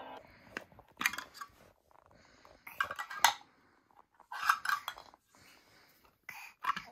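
Hard toy pieces clinking and clacking against each other in about five short clatters, with quiet gaps between.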